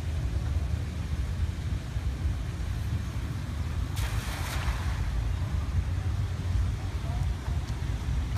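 A cast net splashing briefly onto the river surface about four seconds in, over a steady low rumble of wind on the microphone.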